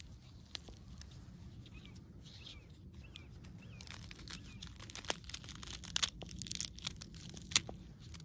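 Ripe pomegranate rind cracking and tearing as fingers pull the split fruit apart, a run of sharp cracks in the second half with the loudest one near the end.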